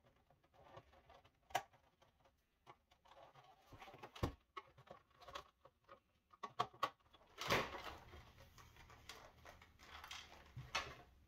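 Faint, scattered sharp clicks and knocks of hard plastic as a screwdriver pries the snap tabs of a Samsung refrigerator water filter housing and its halves are pulled apart. A longer scraping sound comes a little past halfway through.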